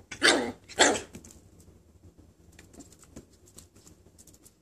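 Small puppy giving two short, loud barks about half a second apart, then only faint light taps and clicks for the rest of the time.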